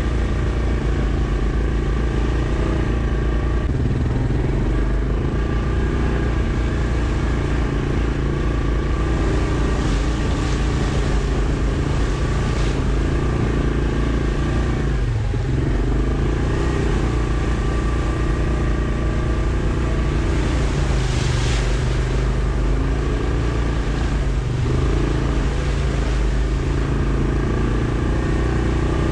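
Yamaha Kodiak ATV engine running steadily while riding. Its pitch dips briefly about halfway through and again near the end.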